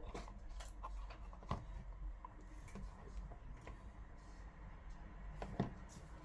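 Scattered light clicks and taps of small plastic speaker parts being handled and fitted together, at irregular intervals, with the sharpest about one and a half seconds in and near the end. A faint steady low hum runs underneath.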